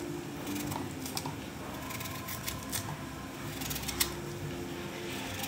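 A kitchen knife cutting raw chayote squash held in the hand, a series of short sharp clicks as the blade goes through the firm flesh, the loudest about four seconds in, with the pieces dropping into a bowl. A faint steady low hum runs underneath.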